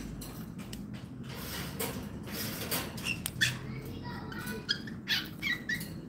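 Cockatiels in a wire cage: scratching and rustling with a sharp click about three and a half seconds in, then several short squeaky chirps in quick succession in the second half.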